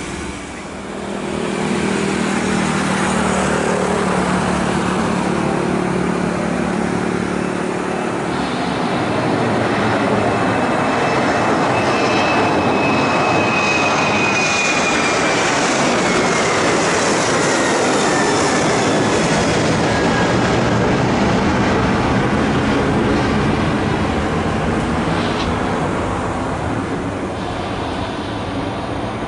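Boeing 737-800's two CFM56-7B turbofan engines at takeoff power as the jet rolls and passes: loud, steady jet noise with a whining fan tone that falls in pitch as it goes by.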